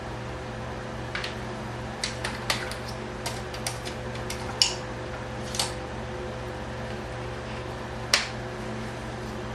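Scattered light clicks and taps from small tools and parts being handled on a workbench, about a dozen over several seconds. They sound over a steady low hum.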